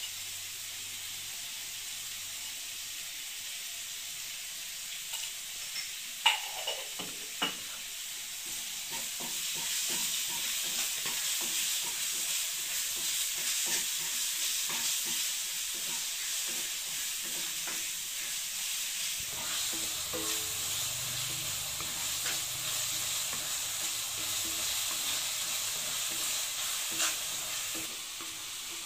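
Onions, green chillies and tomatoes sizzling in oil in a kadai, stirred with a wooden spatula. The sizzle is steady and gets louder about nine seconds in, with a few sharp knocks between about six and seven seconds in.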